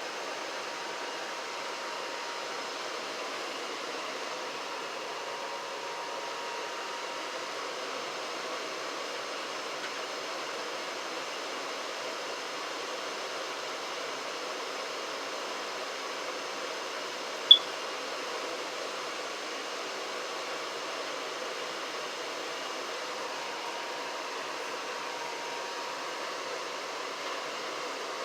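Janitrol furnace running: a steady rush of air with faint hums. About two thirds of the way through there is one very short, high-pitched chirp.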